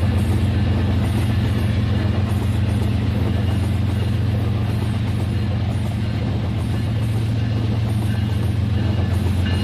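Rail King battery-powered toy train running on its track: a steady low motor drone with faint, regular clicks.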